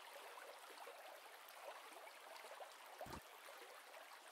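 Near silence: a faint steady hiss, with one soft low thump about three seconds in.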